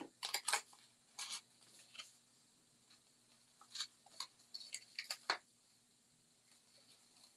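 Paper tag and ribbon being handled as a bow is tied: short scratchy rustles and light rubbing taps, in a cluster in the first second and another about four to five seconds in.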